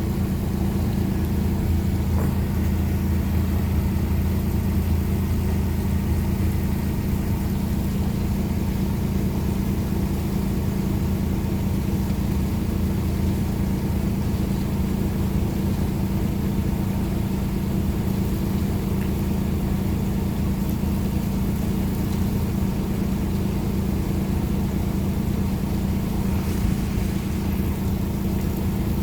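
An engine running steadily at a constant speed, a low, even hum with no change in revs.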